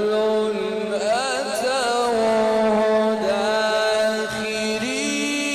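A male qari's voice in melodic, drawn-out Quran recitation, sung into a microphone. He holds one long note with wavering ornaments about a second in, then steps up to a higher pitch near the end.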